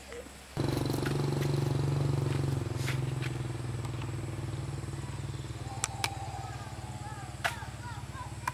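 Motorbike engine idling steadily, starting suddenly about half a second in, with a few faint voices and clicks over it near the end.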